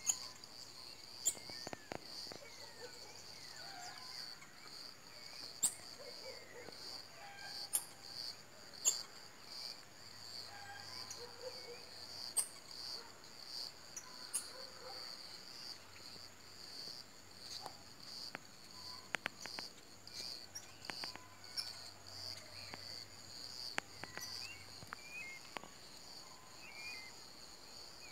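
Marmosets giving short, sharp, high-pitched chirps every second or so over a steady, high insect chorus.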